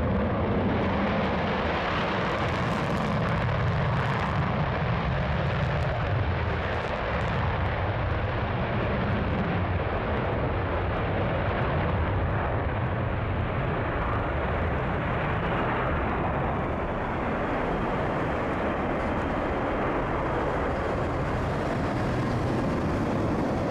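USAF F-15 fighter jet's twin engines in afterburner for takeoff: loud, steady jet engine noise with a deep rumble through the takeoff roll and climb-out.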